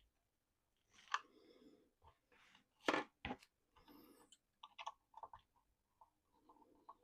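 Small plastic parts and screws being handled: irregular sharp clicks and short scratchy rustles, with the loudest pair of clicks about three seconds in.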